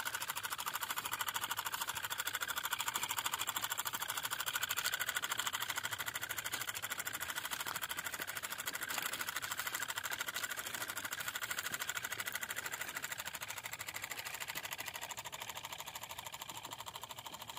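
Miniature hand tractor model running, its small motor and drive giving a fast, steady mechanical chatter that fades as the tractor moves away up the slope.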